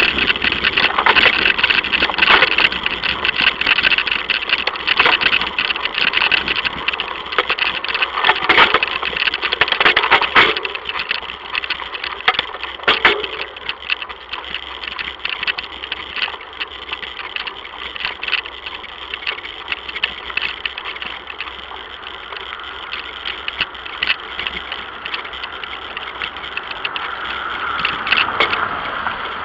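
A bicycle rolling and rattling over a rough road, with many sharp clicks and knocks, settling after about ten seconds into a quieter, steadier tyre noise on smoother pavement. Near the end a car approaches and grows louder.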